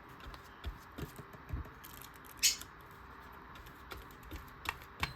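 Light rustling and small taps of cut paper pieces being handled and placed on a collage page, with one brief sharper rustle about two and a half seconds in.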